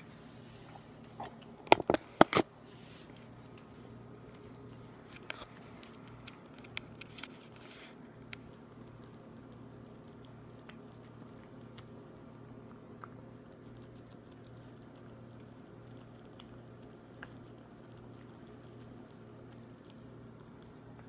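A cat eating wet cat food from a bowl: close chewing and biting sounds, with a burst of loud sharp clicks about two seconds in and fewer, softer clicks later.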